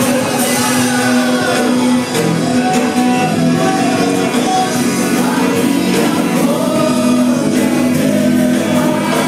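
Live gospel worship music: singers with a band performing a song of praise.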